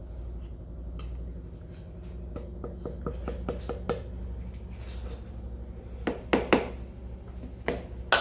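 Measuring cup scooping flour and tapping against a mixing bowl: a string of light knocks and clinks, louder and more frequent in the second half, over a low steady hum.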